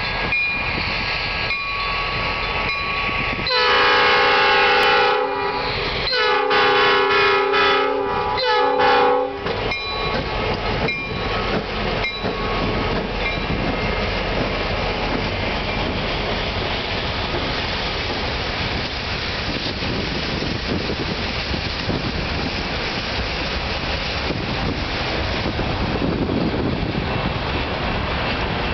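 EMD GP50 diesel locomotive's multi-note chime horn sounding two long blasts and a short one, then the locomotive and its train rolling past with a steady rumble of the diesel and wheels on the rails.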